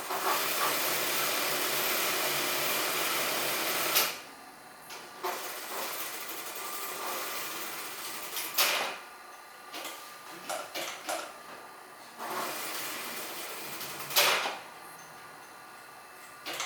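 Electric sewing machine running in three stitching runs of a few seconds each, each ending with a sharp click, with smaller clicks and knocks in the pauses between.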